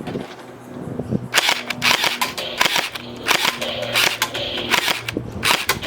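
Electric automatic gel ball blaster firing in several short bursts of rapid sharp snapping shots.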